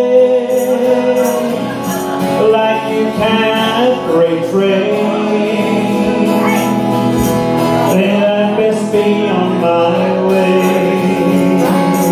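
Acoustic guitar strummed together with a button accordion holding long notes and chords, changing every second or two, in a live folk-style duo performance.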